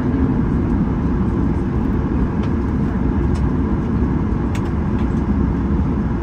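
Steady low rumble inside the cabin of a Boeing 737-800, the engines and airframe heard from a window seat, with a few faint clicks about halfway through.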